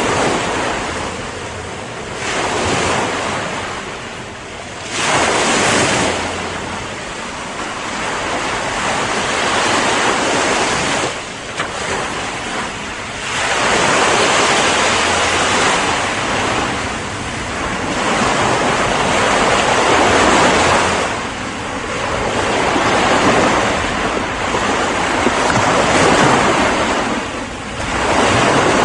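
Ocean waves breaking on the shore, a steady wash of surf that swells and ebbs every few seconds as each wave comes in.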